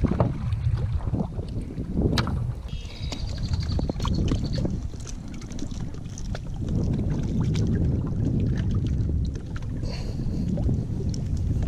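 Wind rumbling on a chest-mounted camera microphone, with scattered sharp knocks and clatter from someone moving about on a boat.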